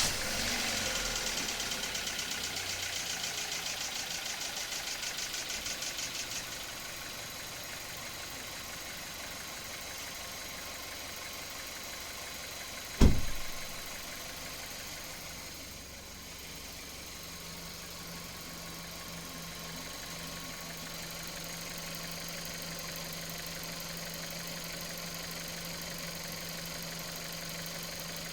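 VW Golf engine just started, running at a raised idle for about six seconds and then settling to a steady idle. A single loud thump comes about halfway through.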